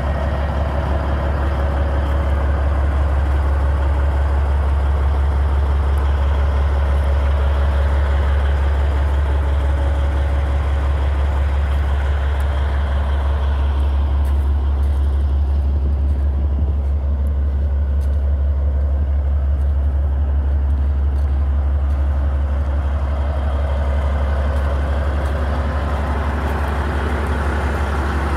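Caterpillar 3406E inline-six diesel of a 1998 Peterbilt 379EXHD idling steadily with a deep, even rumble. The sound turns duller for a few seconds around the middle.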